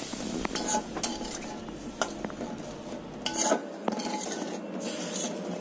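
A spoon stirring and scraping through a tomato-cashew masala in a stainless steel pan, with scattered clinks against the pan. The masala has just been thinned with half a cup of water.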